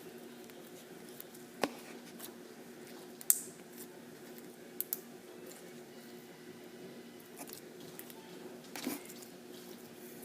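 Slime being squeezed and poked: scattered squishes and short sharp pops, the loudest about three seconds in and a quick pair about five seconds in, over a faint steady hum.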